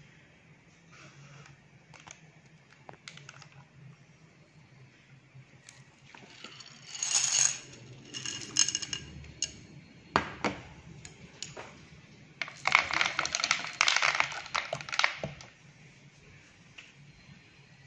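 A plate clattering on a hard surface: ringing clinks about seven seconds in, a sharp knock a few seconds later, then a fast rattle lasting about three seconds, like a plate wobbling to rest.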